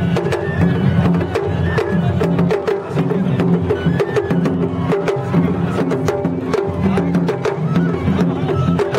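Japanese festival float music (matsuri-bayashi): quick, sharp drum and percussion strikes over a sustained melody, played from the moving float.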